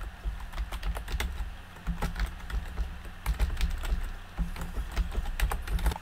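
Typing on a computer keyboard: a quick, irregular run of key clicks as a short name is typed in, over a low rumble.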